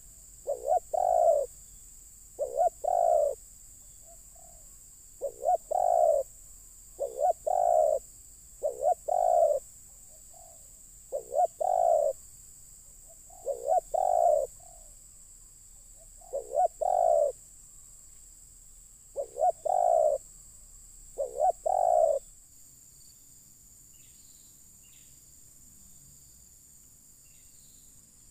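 Spotted dove cooing: a short phrase of a few notes repeated about every two seconds, some ten times, then stopping near the end.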